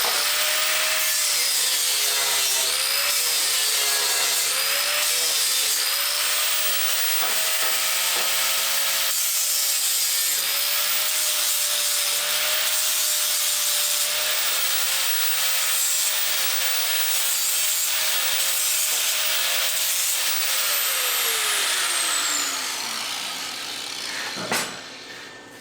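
A grinder running loud against MIG weld on a stainless steel base, its whine dipping and wavering as it bites into the metal. About three seconds before the end it is switched off and its pitch falls away as it spins down.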